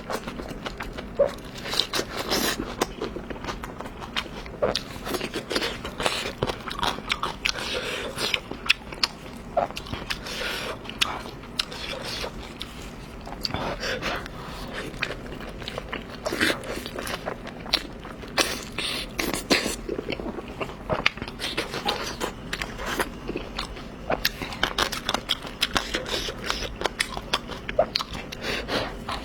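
A person eating close to the microphone: biting and chewing food with many irregular small, sharp clicks throughout.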